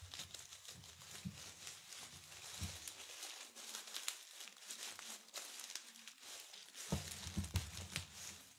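Leafy ivy stems rustling and crackling as they are handled and pushed through a wreath, faint, with many small crackles and a few soft low bumps near the end.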